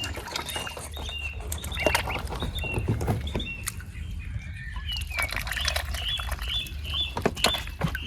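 A brood of waterbird chicks peeping, with short high calls repeated over and over, coming quickly and evenly in the second half. Scattered clicks and taps come in among the calls, over a low steady rumble.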